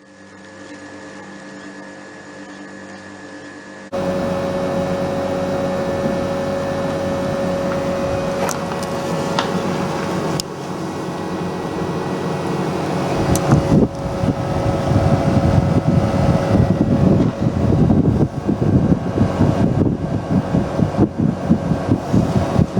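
Mitsubishi Electric Kirigamine MCUZ-G2520 heat-pump outdoor unit running in heating mode: a steady compressor hum with a constant tone, under the rush of the condenser fan. It gets much louder about four seconds in. From about halfway through, a louder rushing noise that swells and drops comes in on top.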